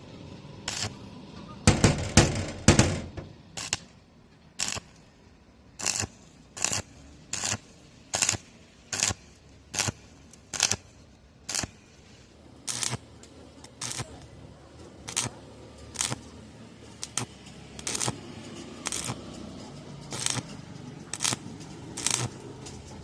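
Repeated sharp strikes on metal in a steady rhythm, about one and a half blows a second.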